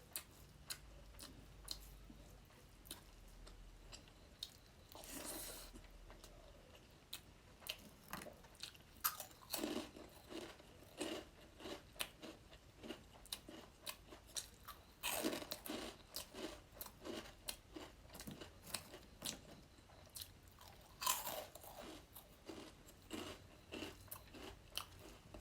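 Close-miked eating sounds from a meal of rice and fish curry: chewing and crunchy bites with many short wet clicks, and several longer, louder noisy stretches.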